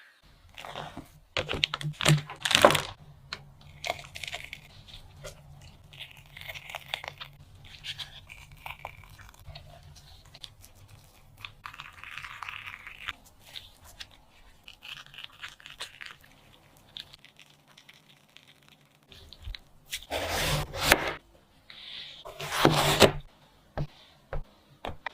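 Kitchen food-preparation sounds: crunching and tearing, with scattered knocks and clicks, and short scraping passages. Two louder crunchy stretches come near the end. A low steady hum runs beneath for most of it.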